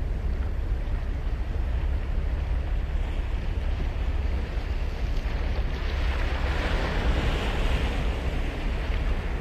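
Surf on a sandy beach: a wave breaks and washes up, its hiss swelling from about halfway through and fading near the end, over a steady low rumble with wind buffeting the microphone.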